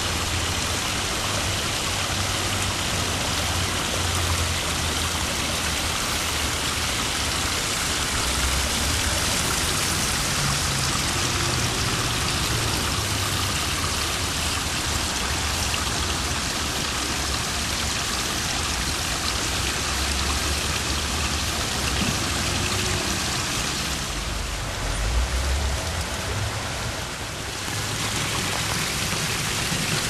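Water of a pondless waterfall splashing and running over rocks in a steady rush. It thins out briefly about three-quarters of the way through, with an uneven low rumble underneath.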